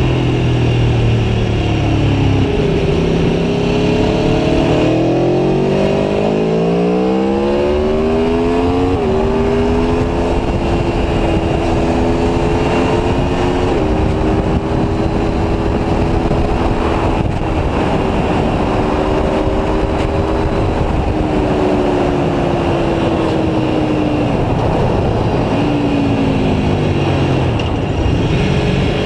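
Aprilia Tuono V4 1100's 65-degree V4 engine under way, revving up through the gears with quick drops in pitch at the upshifts, then easing off, slowing about three-quarters of the way in and pulling hard again near the end. Wind rush on the microphone runs under it.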